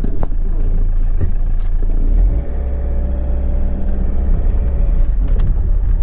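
A Peugeot Partner van's engine running as it is driven, heard from inside the cab as a steady low drone with road noise; the engine note changes about two seconds in.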